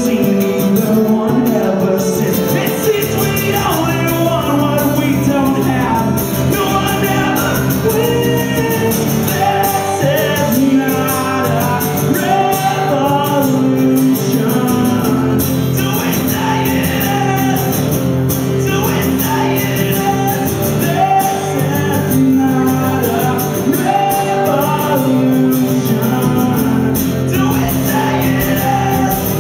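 Live solo rock performance: a man singing into a microphone while playing an amplified acoustic-electric guitar, heard through the venue's PA system.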